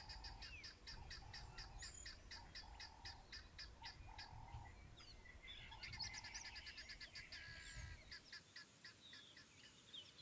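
Faint bird calls: a fast run of high chirps, several a second, mixed with other short chirps and whistles, over a low rumble. The chirping thins out about five seconds in, picks up again a second later, and the rumble stops near the end.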